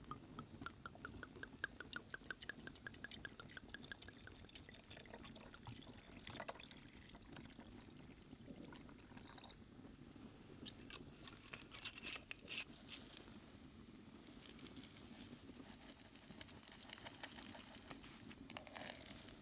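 Liquid poured into a cup, a quick run of gurgles rising slightly in pitch, followed by scattered small clicks and rustles of handling.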